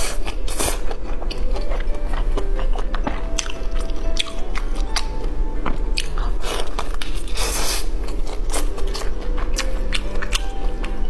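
Close-up eating: crunchy bites and chewing, many sharp crunches throughout, over background music.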